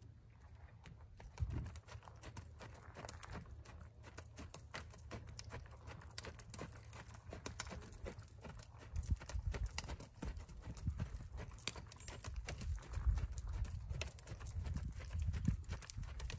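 Hoofbeats of a sorrel mare on a sand arena: muffled footfalls at a walk, then quicker, heavier thuds as she moves into a trot about halfway through.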